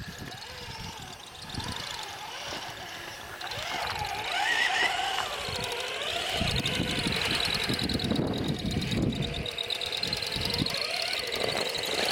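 Small electric motor of a radio-controlled rock crawler whining as it crawls over rock, the whine wavering with the throttle.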